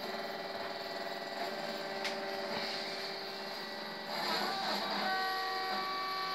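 Stepper motors of a CNC hot-wire foam cutter driving the wire along its cutting path, a steady whine of several tones that shifts in pitch about four seconds in and again around five seconds as the axes change speed and direction.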